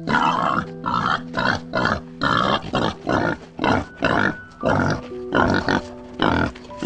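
Wild boar grunting in a quick, even run of short, rough calls, about two a second.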